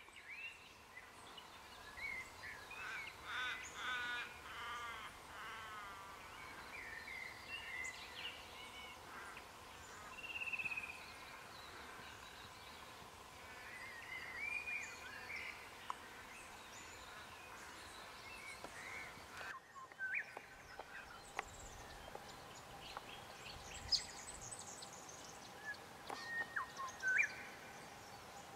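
Wild birds calling in the bush: scattered chirps, whistles and short trills, with a faint steady hum underneath and a few sharp clicks or short calls near the end.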